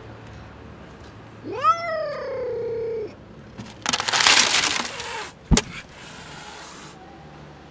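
Angry tortoiseshell mother cat, just after giving birth, gives one drawn-out yowl that rises and then holds steady, followed by loud hissing. Dry kibble spills from a scoop into a plastic tub during the hissing. A single sharp knock comes about five and a half seconds in, followed by a shorter, fainter hiss.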